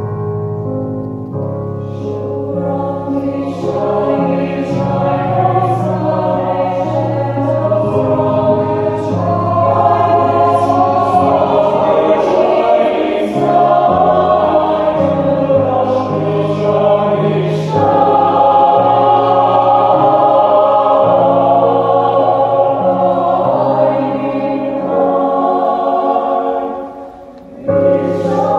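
Mixed choir of men's and women's voices singing sustained chords in several parts. The singing breaks off near the end.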